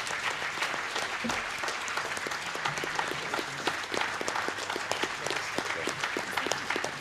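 An audience applauding, a dense, steady patter of many hands clapping that eases a little toward the end.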